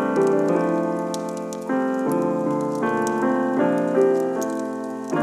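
Background piano music, its chords changing about every second, with faint light ticks over it.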